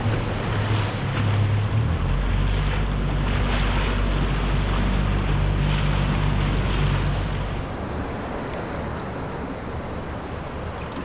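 Outboard motor running on a small boat, its low note stepping up about two seconds in and easing off near the end, with wind on the microphone and water washing past the hull.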